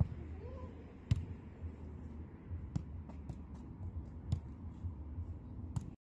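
Footballs being kicked and striking a rebound net: sharp thuds every second or so, over a low rumble. The sound cuts off about six seconds in.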